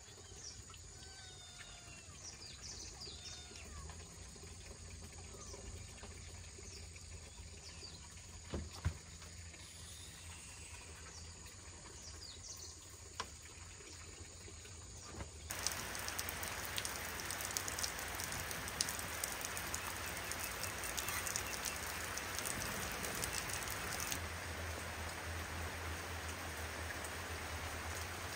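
Birds chirping faintly with a few sharp knocks, then about halfway through heavy rain sets in abruptly: a dense, steady patter of drops on surfaces.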